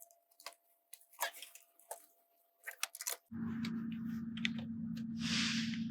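Sparse small clicks and rustles from handling a plastic cable plug and connector under a truck's dashboard. A steady low hum starts abruptly a little over three seconds in, with a brief hiss near the end.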